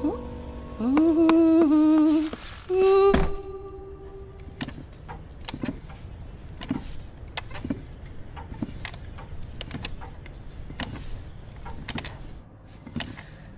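A wordless hummed voice for about two seconds, then a sharp thump with a held note. After that, a wooden rocking chair creaks back and forth about once a second.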